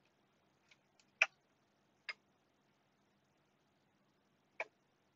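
About five sharp clicks from a Fluke 8500A bench multimeter as its front panel is worked, the loudest about a second in and others near two and four and a half seconds in.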